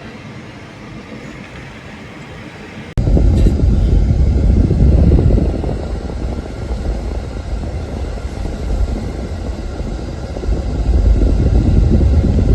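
Vehicle on the move: a steady low rumble of engine, road and wind noise, which jumps abruptly much louder about three seconds in and stays loud.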